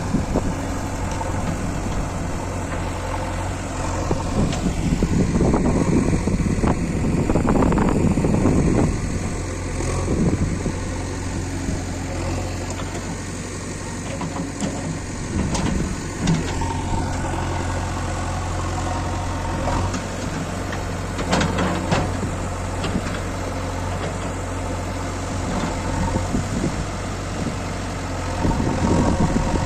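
JCB 3DX Eco backhoe loader's diesel engine running steadily at a low, idle-like speed. It grows louder and rougher in several spells as it works, the longest starting about four seconds in and lasting about five seconds, with shorter ones later and near the end.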